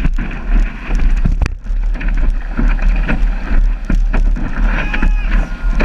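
Whitewater rushing and splashing around a stand-up paddleboard riding a wave, heard from a camera on the board's nose, with wind buffeting the microphone.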